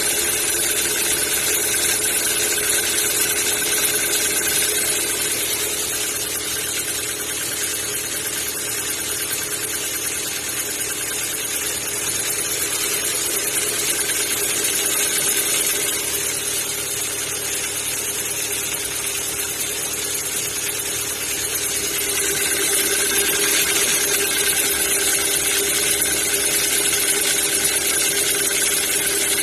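Kia Ceed 1.6 engine idling cold with a strange knock. The owner says it goes away once the engine warms up and compares it to valves or tappets.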